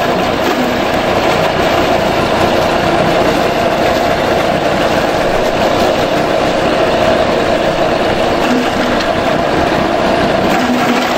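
Agrowindo AGR-CH250 multipurpose grass chopper running loud and steady with an even mechanical hum while cucumbers and bitter melons are fed into its hopper and chopped.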